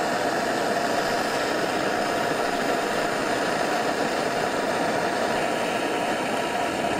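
Handheld gas torch burning with a steady hiss, heating a spark plug seized by rust in a cylinder head so that expansion will break the rust weld.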